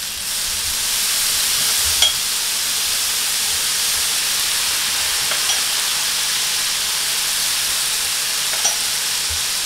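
Salmon steaks and asparagus sizzling on an electric griddle: a steady frying hiss that swells about a second in as liquid is spooned over them, with a few sharp ticks.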